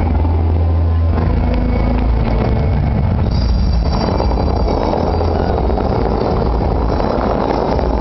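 Water jets of a large choreographed fountain rushing and splashing under a heavy low rumble. The rush grows louder about four seconds in as the jets shoot up again.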